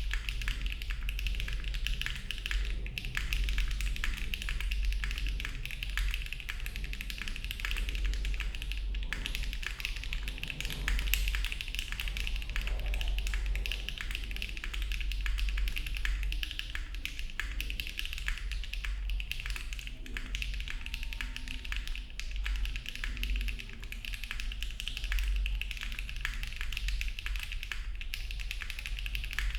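Continuous fast typing on a Mode Envoy mechanical keyboard with HMX Cheese switches, an FR4 plate, no case foam and GMK keycaps: a dense, even stream of key clacks.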